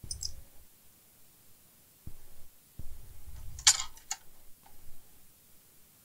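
Workbench handling noise: soft bumps of hands and a tool on the cloth mat, then a sharp click about halfway through with a smaller one just after, as metal tweezers work on the opened phone's board.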